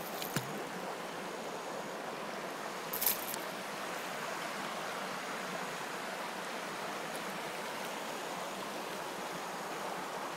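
Steady rushing of running water, with one brief sharp crackle about three seconds in.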